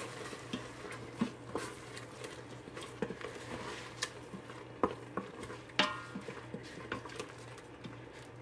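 Wooden spoon stirring a thick pineapple and coconut-paste mixture in the stainless steel inner pot of an Instant Pot, with irregular scrapes and light knocks of the spoon against the pot. A low steady hum runs underneath.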